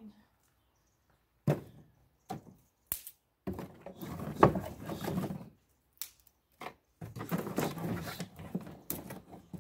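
Dry fruit-tree branch prunings being packed into the bottom of a plastic tub. A few sharp knocks and snaps come first, then crackling, rustling twigs as the branches are pressed down, with more clicks between.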